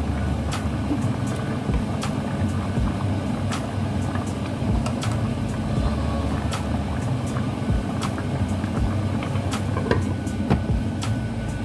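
Pot of coconut milk and taro boiling hard: a steady low rumble with scattered sharp clicks and pops. The glass lid is lifted, a plastic spoon stirs the thickening mixture, and the lid is set back on near the end.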